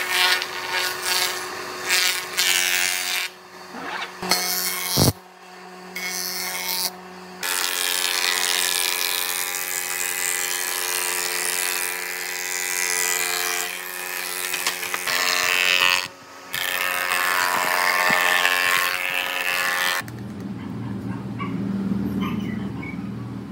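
Combination jointer-planer machine running and planing a pine board: a steady motor and cutter-head tone under loud rushing cutting noise, with a few short breaks between passes. About twenty seconds in it drops away to a much quieter low hum.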